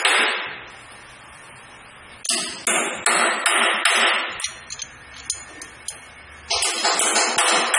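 Metal tool knocking against the stainless-steel capping head of a vial filling machine: sharp ringing metallic clinks in two runs of several strikes, about three a second, with a quieter gap in the middle.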